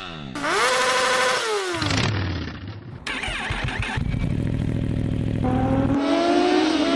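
Motorcycle engine revving up and down, then running steadily and accelerating with rising pitch near the end, in several abruptly cut segments.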